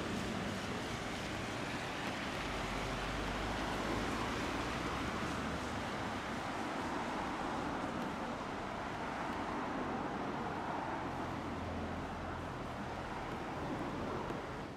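Tosaden streetcar running, a steady rumble with a low hum that shifts in pitch now and then.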